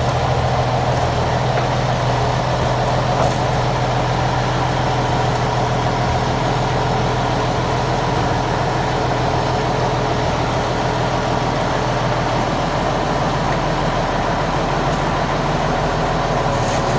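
Fish-feed pellet machine running steadily under power, its motor and crusher giving a constant low hum with a busy mechanical noise over it.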